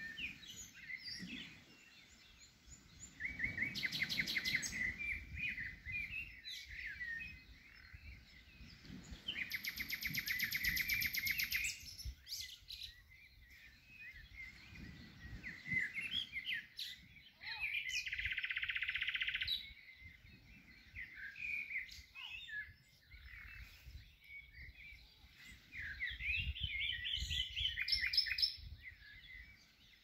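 Several songbirds chirping and singing in a dawn chorus, with fast trills about 4 s in, around 10 s, and a buzzier one just before 19 s. A low background rumble comes and goes underneath.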